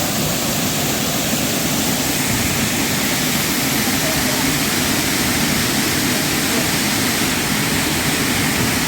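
Rushing water from a waterfall: a steady, even roar with no breaks.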